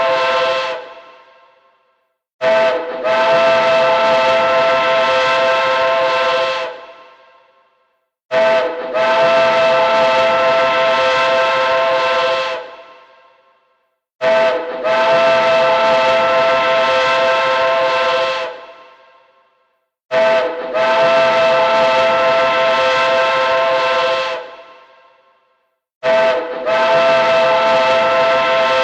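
Train hooter sounding repeatedly: each time a short toot, then a long blast of about four seconds in a chord of several steady pitches with a hissy edge, which fades out. The same blast comes back about every six seconds, five times, after the tail of an earlier one.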